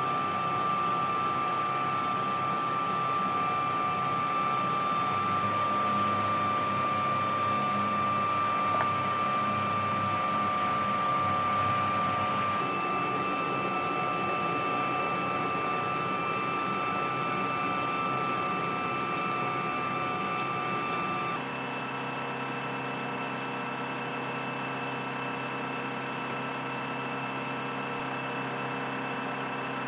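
HH-60G Pave Hawk helicopter running on the ground: a steady high turbine whine over a rumble. The tones shift abruptly about 13 and 21 seconds in, and the sound drops slightly in level at the second change.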